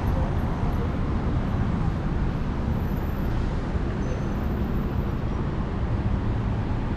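City street ambience: a steady rumble of road traffic from the cars on the street beside the sidewalk.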